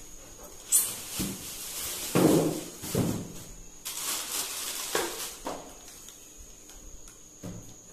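Plastic sheet wrapping rustling and crinkling in irregular swishes as a flat-screen LED TV is pulled out of it and its foam packing, with a few light handling knocks.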